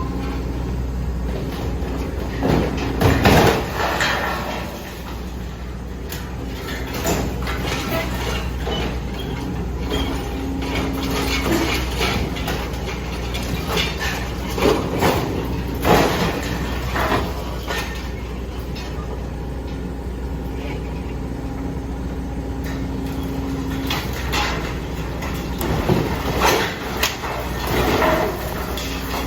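A 0.45 m³-class hydraulic excavator's diesel engine running steadily, with a humming tone that comes and goes. Loud bursts of metal clanking and scraping come a few times as the steel frame of the building is pulled apart.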